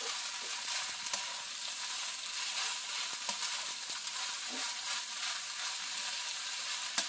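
Fried rice sizzling in a hot pan while being stirred and tossed with a plastic rice paddle: a steady hiss of frying with light scrapes and taps of the paddle against the pan, and one sharper knock near the end.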